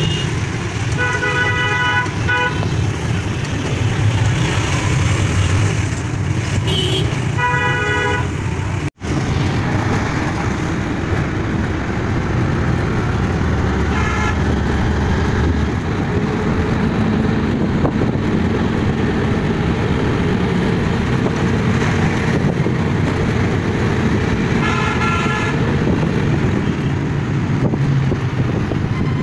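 Ride in an auto-rickshaw: its engine runs with a steady low drone under street traffic noise, and vehicle horns toot in short bursts several times.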